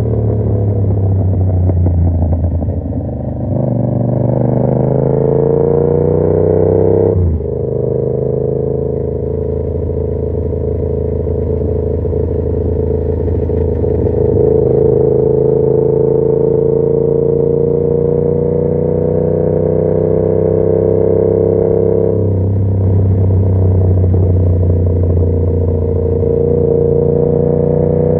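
2021 Yamaha MT-07's 689 cc parallel-twin engine running through an aftermarket SC Project carbon exhaust under way, its note slowly rising and falling with the throttle. There is a sudden short break in the note about seven seconds in, then a long slow climb in pitch, and the note changes again a little after twenty seconds.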